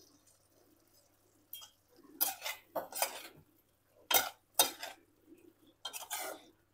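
A cooking utensil stirring and scraping against a pan in about six short strokes, starting about a second and a half in. This is the thick cauliflower curry being mixed after the chopped coriander leaves go in.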